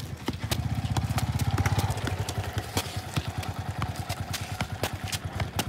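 A motorbike engine passing close, its low rapid pulsing loudest about one to two seconds in and then fading. Over it come the sharp taps of a football being kicked up again and again and footsteps on the road.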